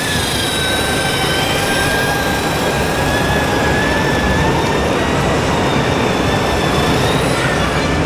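Thin whine of a radio-controlled model dump truck's electric drive and gearbox, its pitch drifting slightly as it drives and fading near the end, over the steady din of a crowded exhibition hall.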